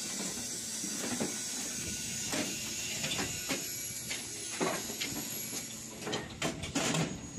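Steady air hiss from the hoof-trimming chute's air-over-hydraulic controls as its levers are worked, with several sharp metal clanks near the end.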